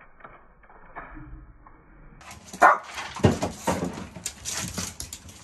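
Shih Tzus begging: short whimpers and yips mixed with sharp clicks and scrabbling of claws on a wooden floor and cabinet fronts. It is faint for the first two seconds, then louder and busier from about two seconds in.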